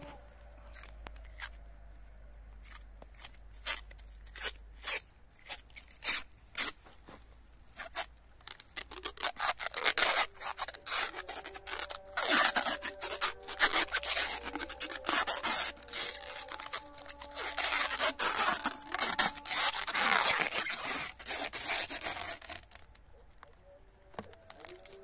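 Plastic cling film being pulled off its roll and stretched round a tree graft to seal it airtight: scattered crackles at first, then dense crinkling and rustling from about nine seconds in, stopping shortly before the end.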